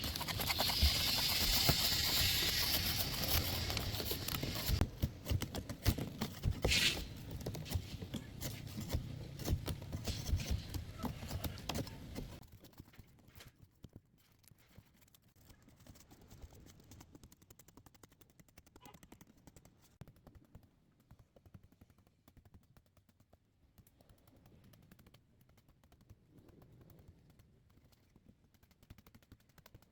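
Rapid, irregular knocking and clattering of hand-tool work on a car body, loud for about the first twelve seconds, then dropping to faint scattered clicks.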